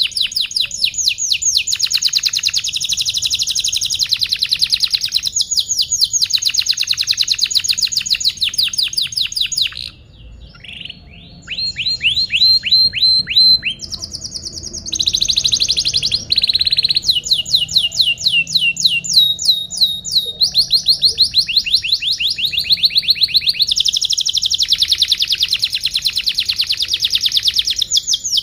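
Domestic canary singing long, fast, high-pitched trills of rapidly repeated down-sweeping notes, one phrase running into the next, with a brief quieter break about ten seconds in.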